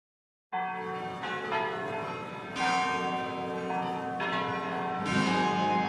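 Song intro of bell-like tones: after half a second of silence, chimes are struck one after another, a new stroke every second or so, each ringing on under the next.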